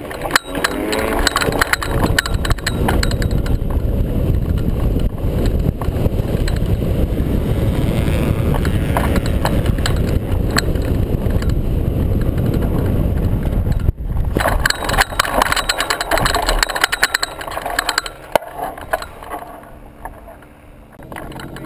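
Loud wind rushing and buffeting on the microphone of a camera mounted on a hang glider during a foot-launched aerotow, with the towing tug's engine likely mixed in. It dies down over the last few seconds as the glider lands.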